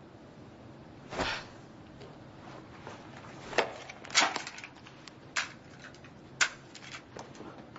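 A soft swish about a second in, then a handful of sharp clicks at irregular intervals as a pistol is handled and passed over.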